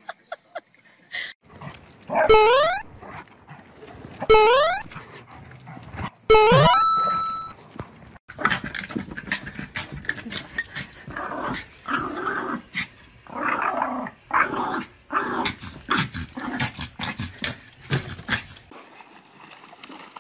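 Small dog barking and growling in rapid short bursts at a clothes iron held toward it. Before that, three loud short sounds, each rising in pitch, about two seconds apart.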